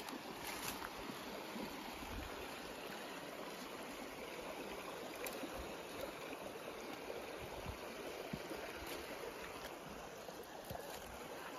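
Shallow, clear creek running steadily over a rocky bed, water splashing and trickling through a small riffle.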